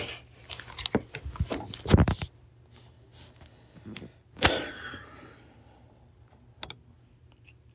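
Handling noises close to a microphone: a cluster of short knocks and rustles in the first two seconds, the loudest about two seconds in, then another rustling sound about halfway through and a couple of faint clicks near the end.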